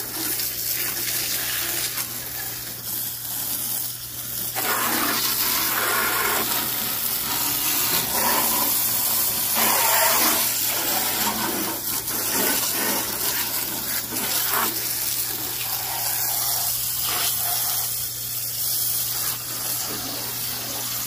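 Water jetting from a garden hose spray nozzle and hissing and splashing against a riding lawn mower's plastic body and deck. The splash sound keeps shifting as the jet is moved over different surfaces.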